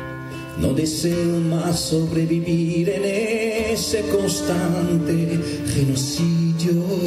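Live flute and acoustic guitar duo: the flute carries a melody with vibrato over the guitar, with the full sound coming in about half a second in.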